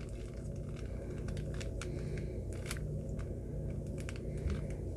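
Rapid, irregular plastic clicks and clacks of a Moyu GEO Cube's layers being turned by hand in quick succession while an algorithm is run.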